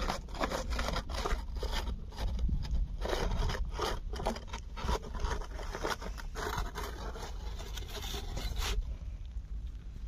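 A cat eating: a run of quick, irregular scraping and crunching clicks from its chewing. It thins out near the end.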